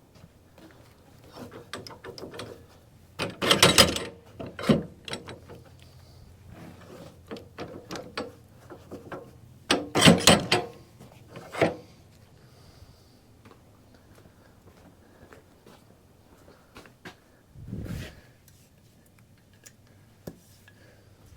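Irregular metallic clanks, knocks and scraping of wood as a log is handled on a portable sawmill bed, with its log clamps and fittings being worked. The loudest clatters come just before 4 s and around 10 to 12 s, with a duller thump near the end.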